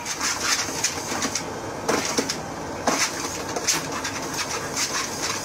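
Treadmill running with a dog on its belt: a steady whirring hiss with irregular knocks and clatters.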